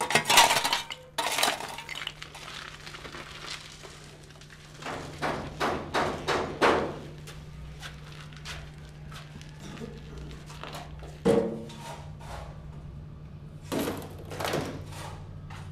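Chunks of stone and broken masonry rubble clattering and thudding as they are dumped onto a rubble pile, in several bursts: a loud one at the start, a run of them about midway, and two more toward the end. A steady low hum runs underneath.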